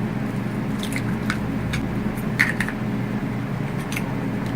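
An egg being added to a bowl of flour-and-water batter: a few light clicks and soft squishing over a steady low hum.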